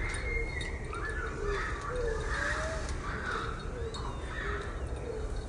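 Birds calling: short, low cooing notes that rise and fall, repeating about once a second, with chirping above them.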